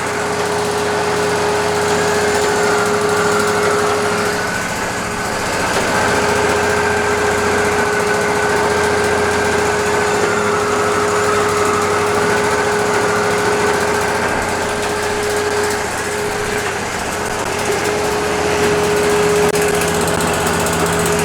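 Wood-Mizer LT40 hydraulic sawmill running steadily, with a constant whine that drops out briefly twice, about four and a half seconds in and again about sixteen seconds in.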